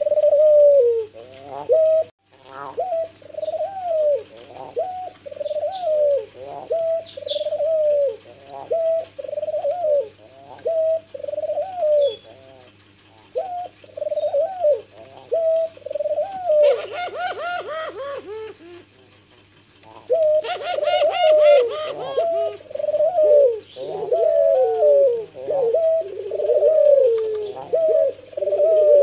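White (albino) turtle dove cooing over and over in a long run of rolling, rising-and-falling coo phrases, with two short lulls midway. Twice near the middle, a higher rapid chirping sounds over the coos.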